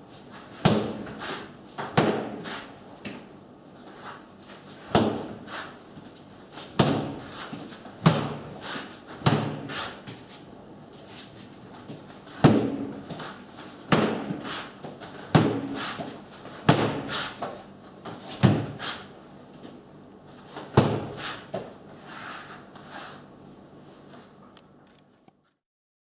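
Nunchaku striking a freestanding rubber torso training dummy over and over: a dozen or so sharp smacks, one to three seconds apart, each with a short ring after it. The sound cuts off suddenly near the end.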